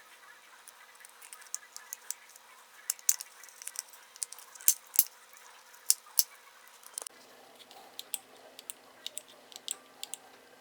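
Scattered small plastic clicks and taps: a Saturn Vue power window switch's plastic housing and parts being handled and snapped back together.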